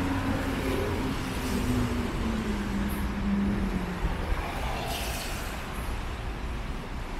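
Steady city traffic on wet streets. One vehicle's engine hum drops slowly in pitch over the first four seconds as it passes or slows.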